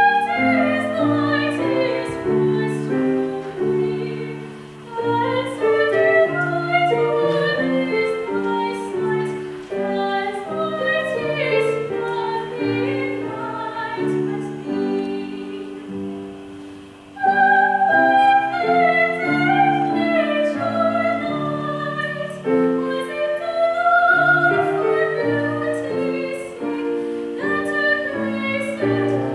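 A classically trained female voice singing a song, accompanied on grand piano. The music softens about sixteen seconds in, then the voice comes back strongly.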